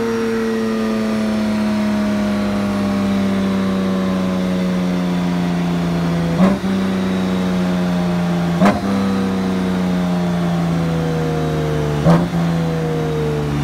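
BMW K1600B's inline-six engine running in sixth gear through Fullsac Performance prototype mufflers, its pitch falling slowly as the revs drop. Three sharp pops break in, about six and a half, eight and a half and twelve seconds in.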